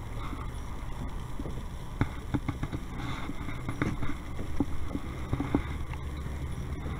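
Steady low wind rumble on the microphone, with a run of light clicks and knocks from handling gear in a kayak, from about two seconds in until near the end.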